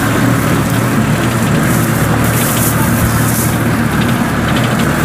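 Farm machine engines running steadily with an even low hum, a small tracked mud tractor and a Kubota combine harvester working in the rice field.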